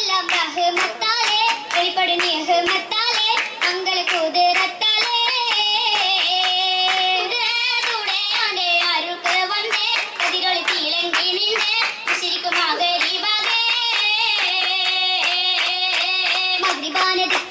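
Female voices singing a Malayalam Oppana song, with the dancers' hand-clapping in time throughout as many sharp claps.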